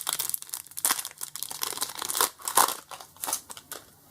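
Foil wrapper of a Pokémon card booster pack crinkling and tearing as it is opened by hand, in a run of irregular rustles and crackles.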